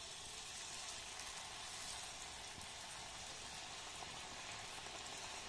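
Ripe-jackfruit pakoda batter deep-frying in hot oil in a kadai: a steady, even sizzle of bubbling oil.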